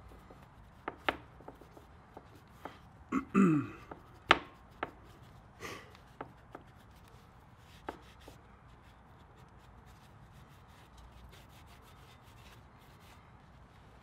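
Gloved hand wiping a motorcycle's rear brake caliper with a cloth shop towel: scattered light knocks and taps of hand and towel against the metal parts, with a short squeak falling in pitch about three seconds in and a sharper knock just after. Little sound in the second half.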